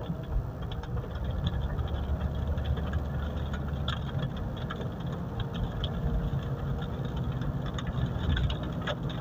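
Mitsubishi Pajero on a brake test drive: steady low engine and road rumble with scattered light clicks and rattles.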